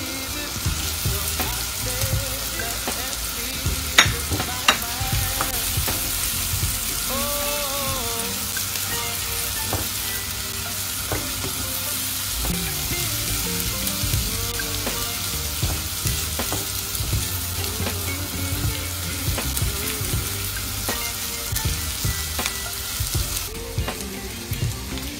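Chopped pork belly and pig's ear sizzling with onions and garlic in a nonstick frying pan, stirred with a spatula. Two sharp knocks about four seconds in, and the sizzle grows louder soon after and eases near the end.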